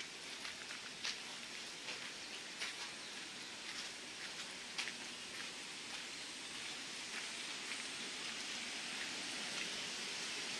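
Rushing river water, a steady hiss that grows gradually louder, with scattered light clicks in the first half.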